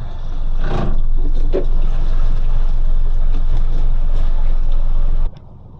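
Motorboat running underway, a loud steady low rumble of engine mixed with wind and water noise; it cuts off abruptly near the end.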